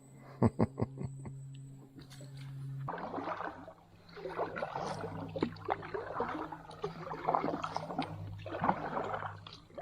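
Kayak being paddled along a creek, the paddle dipping and splashing water with small knocks, after a quick run of about six clicks in the first second and a half.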